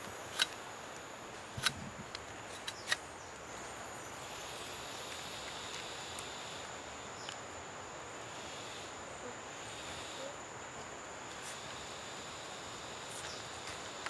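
Forest ambience with steady insect buzzing and a thin high whine. In the first three seconds a machete blade shaves a wooden stick, giving three sharp clicks.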